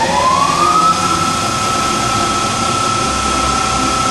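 ACER E-Lathe 1440V spindle, driven by a 3 hp AC motor on an electronic variable-frequency drive, speeding up: a whine rises in pitch for about the first second, then holds steady as the spindle nears 2,000 rpm.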